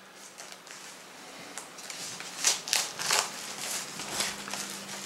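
Plastic wrapping on a CD package crinkling and tearing as it is opened by hand, in short irregular bursts that are loudest about halfway through, over a faint steady hum.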